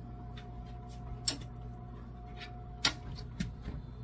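A metal serving spoon and a stainless steel roasting pan on an oven rack give a few light clicks, about three spread across a few seconds, over a steady low hum.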